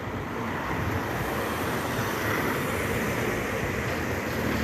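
Road traffic passing on a dual carriageway: steady tyre and engine noise, swelling slightly. No pedestrian-crossing beeper sounds.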